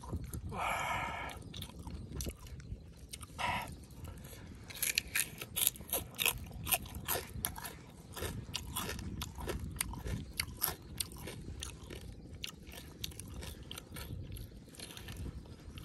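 Close-up chewing of grilled pig tail: wet mouth smacks and crunching of the charred skin, with a rapid run of sharp clicks in the middle stretch. A brief vocal sound comes about half a second in and again at about three and a half seconds.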